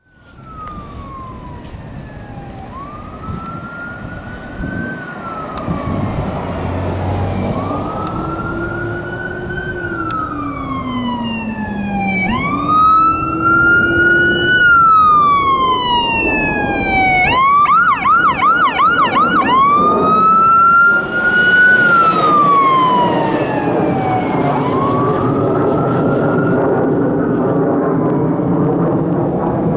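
Ambulance's Whelen electronic siren sounding wail, rising quickly and falling slowly in repeated cycles, switching for about two seconds past the middle to a rapid yelp, then back to wail. In the first half a deep Howler low-frequency tone sweeps beneath it for several seconds. It grows louder as the ambulance approaches, over engine and road noise.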